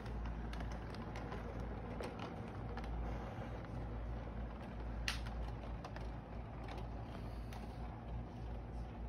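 Toy electric train running around its track: a steady low hum and rumble from the motor and wheels, with scattered light clicks and a sharper click about five seconds in.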